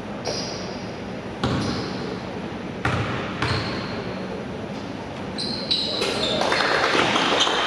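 Basketball bouncing on a gym floor, a few sharp knocks with short high squeaks between them. Voices in the hall grow louder near the end.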